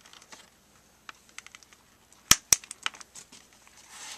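Plastic tablet housing clicking as it is pressed together by hand, with two sharp snaps close together a little after two seconds in, then lighter clicks.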